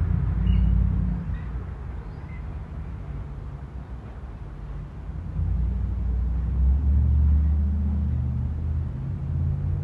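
Strong, gusty wind buffeting the microphone as a low rumble, swelling into a louder gust about halfway through.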